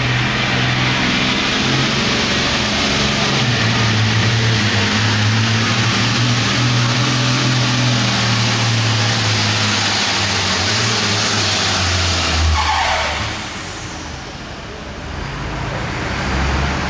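Modified International 986 pulling tractor's diesel engine running hard and steady under load while pulling the sled. About three quarters of the way through it backs off with a falling whistle and drops to a lower rumble, then rises again briefly near the end.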